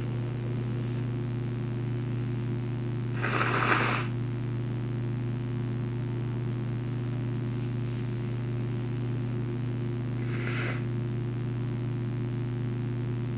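Two short sniffs through a stuffy nose, the louder about three and a half seconds in and a fainter one near ten seconds, over a steady low hum.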